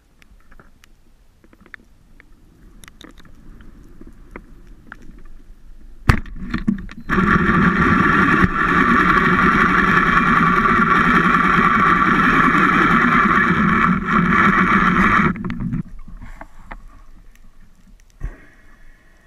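A sharp speargun shot about six seconds in, followed a second later by a loud, steady whirring for about eight seconds that cuts off suddenly.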